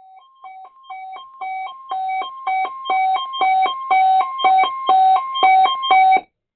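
Weather radio receiver's alert alarm set off by the NOAA Weather Radio warning-alarm test: two beeping tones, a lower and a higher one, alternating about four times a second and growing steadily louder, then cutting off suddenly.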